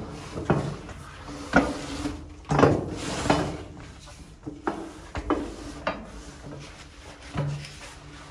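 Footsteps knocking on a wooden stepped walkway, irregular hollow thuds every half second or so, with a louder scuffing noise a little after two seconds. A faint steady hum runs underneath.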